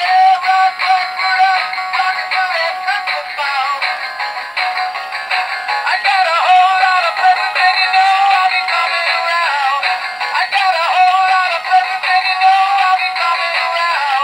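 Knock-off Rocking Santa animated toy playing its song through its small built-in speaker: a singing voice over music, thin and tinny with no bass.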